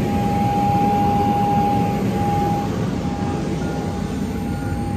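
Jet airliner's turbine running on the apron: a loud, steady rumble with a high whine held on one pitch.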